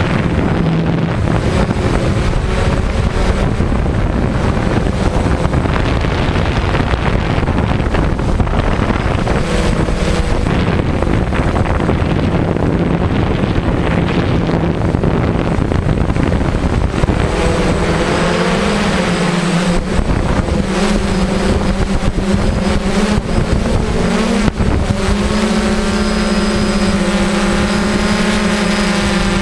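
DJI quadcopter's propellers and motors buzzing, heard from the camera on board, mixed with heavy wind rushing over the microphone. About two-thirds of the way in the wind rush eases and the propeller buzz comes through as a steady, clearer hum.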